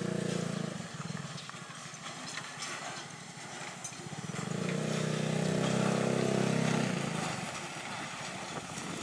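Diesel train coming along the track from a distance, giving a steady low droning note in long swells lasting about two seconds each: one fading out within the first second, a louder one in the middle. Light high ticking runs underneath.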